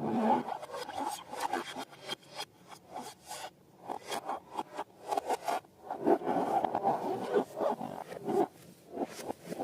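Slime being squished and scraped by hand in irregular, crackly rubbing strokes, quieter for a couple of seconds before picking up again midway.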